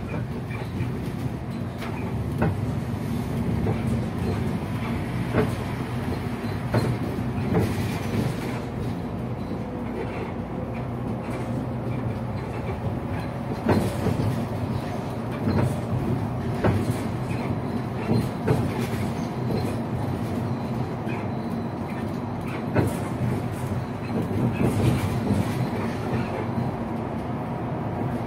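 City bus under way: a steady engine and road drone with frequent knocks and rattles running through it.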